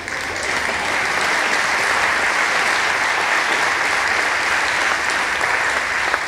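Theatre audience applauding, starting abruptly and holding steady, easing slightly near the end.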